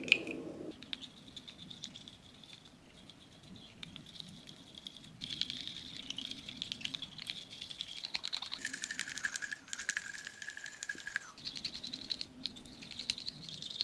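A coffee stirrer stick clicking and tapping inside small plastic bottles of coloured slime goo in quick, light, irregular clicks, stirring up colour that has settled to the bottom. A faint, steady, high whine runs underneath for most of the time.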